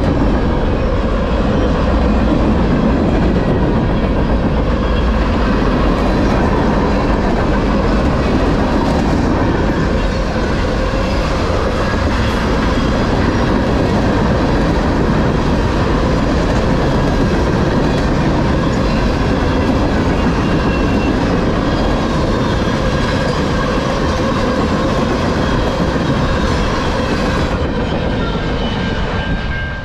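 Freight cars of a long freight train rolling past close by: a steady, loud rumble and rattle of steel wheels on the rails.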